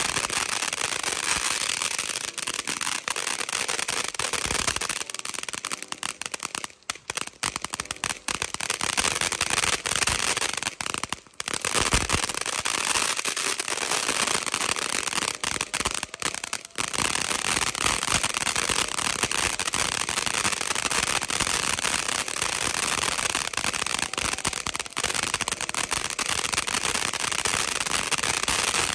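Freedom Fireworks' Majestic Momma 500-gram fountain firework spraying with a dense, intense crackle, a continuous rush of tiny crackling pops over a hiss. It eases off briefly twice, about a third of the way in and again near the middle.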